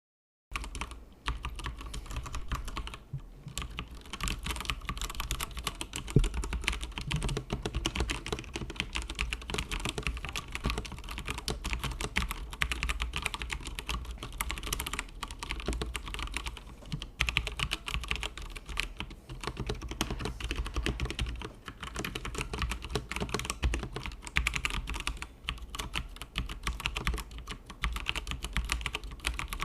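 Continuous fast typing on a Tecware Phantom RGB mechanical keyboard with stock pre-lubed Outemu Brown tactile switches: a dense run of key clacks with a few brief pauses. A steady low hum runs underneath.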